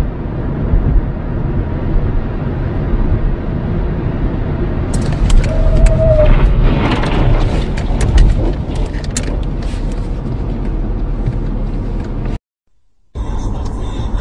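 Car crash heard from inside the car: steady road rumble, then from about five seconds in a run of sharp knocks and clatter lasting about four seconds, with a short squeal among them. The sound cuts out briefly near the end.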